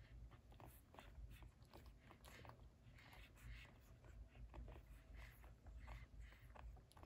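Faint suckling and smacking of newborn puppies nursing, with many small irregular clicks.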